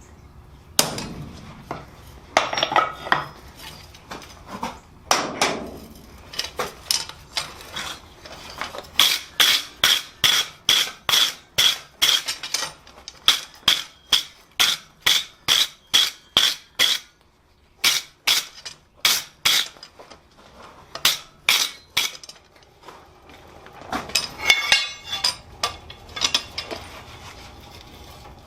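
Hand hammer striking steel on an anvil: a run of ringing blows, about two a second, in the middle. Scattered metal clanks and clinks come before and after it.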